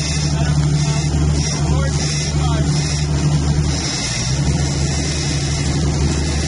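Sport-fishing yacht's engine running under way, a steady low drone, with water rushing along the hull.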